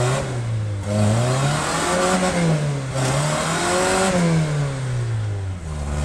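A first-generation Toyota pickup's engine revving up and down in repeated swells under load as the truck tries to climb a wet rock ledge. The front open differential is losing traction and holding the truck back.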